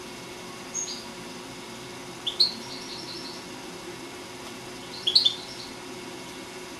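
Caged European goldfinch singing: three short, high twittering phrases a couple of seconds apart.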